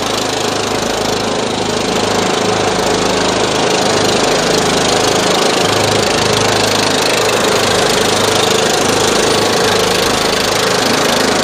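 Riding lawn tractor engines running steadily as the mowers drive along in a race, with a steady whine over the engine note.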